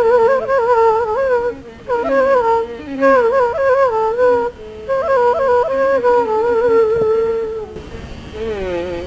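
Carnatic bamboo flute playing phrases of raga Shanmukhapriya, its notes bending and shaking in gamakas, with no percussion. Near the end the flute pauses and a softer melodic line falling in pitch follows.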